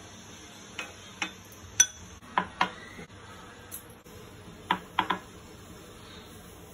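Glass bowls clinking and knocking on a stone countertop, with several sharp clinks in small clusters, some with a brief glassy ring.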